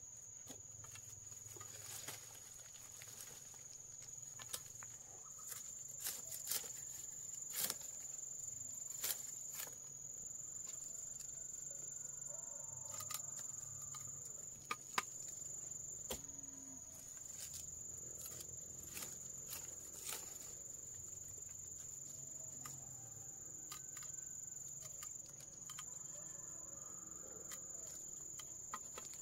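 Insects trilling: one steady, unbroken high-pitched tone like a cricket's, with scattered sharp clicks and knocks over it.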